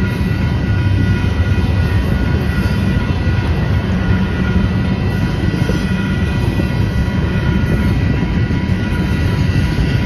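Double-stack intermodal freight train rolling past: a steady rumble of wheels on rail from the loaded container well cars, with faint steady high-pitched tones over it.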